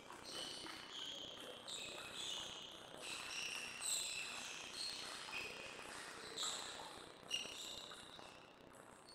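Faint table tennis play from elsewhere in the hall: irregular sharp ball strikes, about one a second, each with a high ringing echo.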